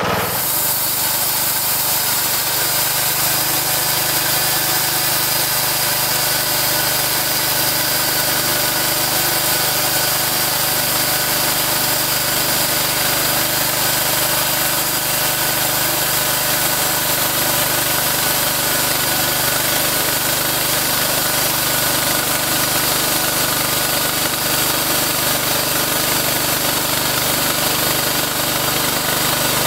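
Small engine on a two-post bandsaw sawmill head running steadily at speed, driving the band blade as it cuts along a squared log.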